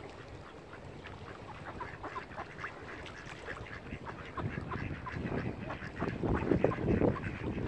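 Mallard ducks quacking in quick, repeated short calls. Wind buffets the microphone from about halfway in, growing louder.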